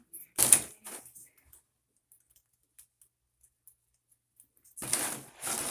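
Cardboard rustling and scraping in short bursts: one about half a second in, and a cluster near the end, with a few faint clicks between.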